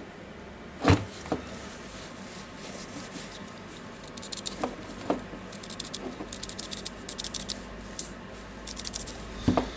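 Hands handling small tool parts and wires on a workbench: a few light knocks, the loudest about a second in, and a stretch of fine crackling rustle from about four to eight seconds in.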